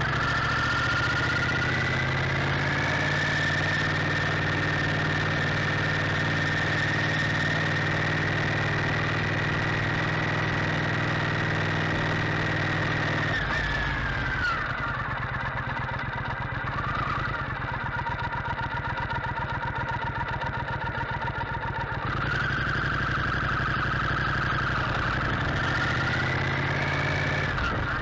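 Motorcycle engine running while riding, with a steady engine note and a high whine. About halfway through it drops to a slow idle-like pulse, as if stopped or slowing, and picks up again a few seconds before the end.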